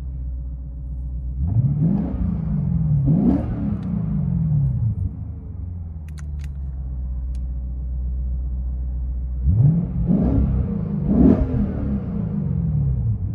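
2015 Lexus RC F 5.0-litre V8 heard from inside the cabin, idling and then revved in two quick rising-and-falling blips, twice over. The first pair comes with the Valvetronic Designs exhaust valves closed, the second, after a few light clicks, with the valves open.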